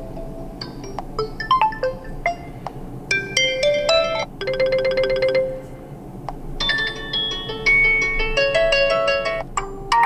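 Realme Narzo 50i alarm tones playing one after another: short electronic melodies of bright chiming notes that change pattern every second or two, with a fast trilling tone about halfway through and a busy run of chimes after it.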